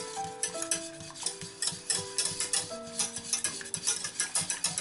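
A wire whisk stirring a thick cream sauce in a stainless steel saucepan, clicking and scraping quickly against the pan, over background music with held notes.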